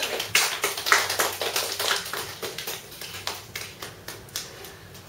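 Small audience applauding, the claps dense at first, then thinning out and fading away.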